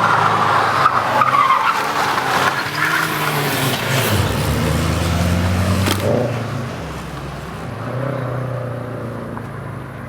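Toyota GT86/Subaru BRZ flat-four engine with a catless exhaust revving up and down under load while the tyres squeal. The sound grows quieter over the last few seconds.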